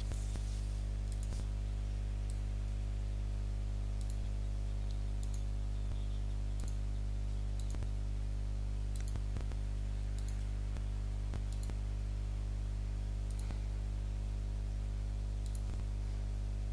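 Computer mouse clicking at irregular intervals, about once a second, as points are set one after another to trace a shape's outline. A steady low hum runs underneath.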